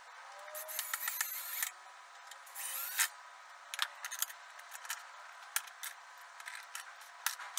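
Cordless drill driving screws into a pine frame in two short runs over the first three seconds, then scattered clicks and knocks as screw-type corner clamps are loosened and taken off.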